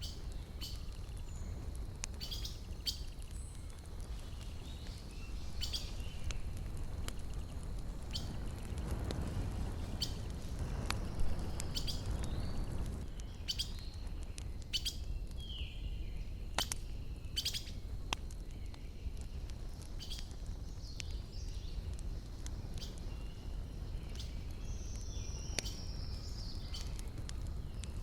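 Wood campfire crackling with scattered sharp pops, while small birds chirp now and then in the background. Near the middle a soft rushing noise swells for a few seconds and fades.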